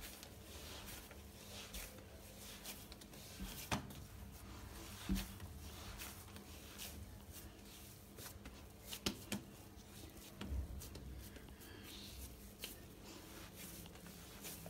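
Hands kneading a ball of pizza dough on a marble countertop: faint, irregular pats and presses of the dough, with a few sharper knocks scattered through.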